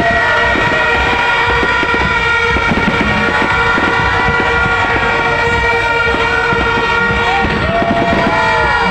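Several horns blaring steadily together at once, over dense crackling and popping from New Year's fireworks.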